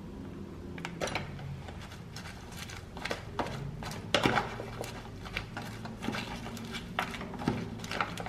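Metal fork tossing dressed salad greens in a clear plastic clamshell container: irregular clicks and scrapes of the fork against the plastic, with the rustle of leaves, starting about a second in.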